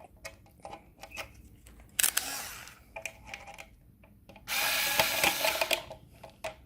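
Electric screwdriver running in two short runs, the second about a second long, tightening a terminal screw on an outdoor electrical socket. Small clicks and taps are heard between the runs.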